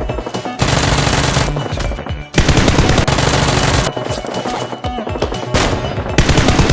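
Several long bursts of rapid automatic gunfire, a sound effect laid over the battle, with background music beneath.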